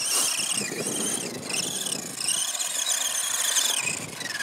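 Arrma Granite Mega RC monster truck's stock brushed electric motor and gears whining on its NiMH pack, the pitch rising and falling several times as the throttle is worked and dropping away near the end.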